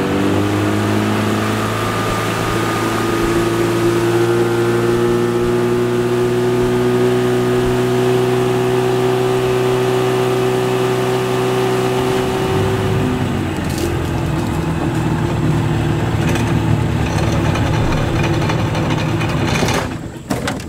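Boat motor running under way, its pitch rising as it speeds up at the start and then holding steady. The pitch shifts about twelve seconds in, and the motor drops off near the end.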